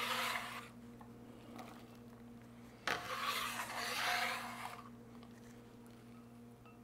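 Steel bench scraper scraping across a wooden cutting board, scooping up diced onion: a short scrape at the start, then a longer scrape and sweep of about two seconds a few seconds later.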